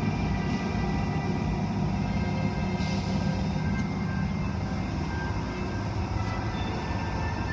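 Automated tunnel car wash machinery running steadily: motors with a low hum, the cloth brushes spinning and water spraying.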